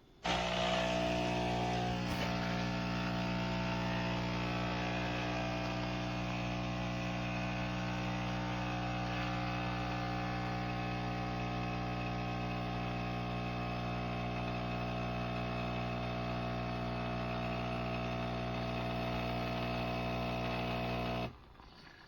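Philips LatteGo fully automatic espresso machine's pump running with a steady buzzing hum while it dispenses a cappuccino. It starts suddenly and cuts off abruptly near the end, once the drink is done.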